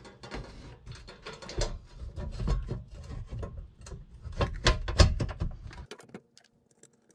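Metal cover of an electrical breaker panel being fitted back on by hand: a run of clicks, scrapes and knocks as it is seated, with a couple of louder knocks near the end, stopping about six seconds in.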